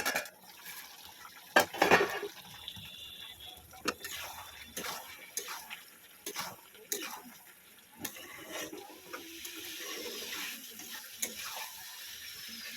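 Water running and splashing in a kitchen, with scattered clinks and knocks of metal utensils and pots.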